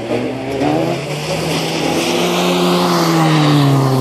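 A car's engine coming closer at speed and passing near the end, its note rising gently and then easing off over a swelling hiss of road noise.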